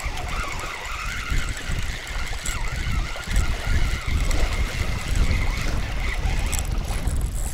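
Wind buffeting the microphone in a steady low rumble over waves lapping at the shore, with a faint steady high whine underneath.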